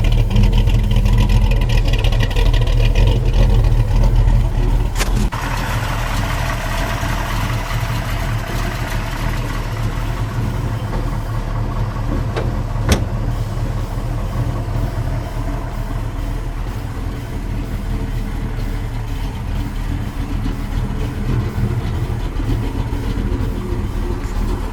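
1967 Dodge Dart's 408 stroker Mopar V8 with a solid roller cam, running steadily. The sound shifts slightly about five seconds in, and there is a single sharp click partway through.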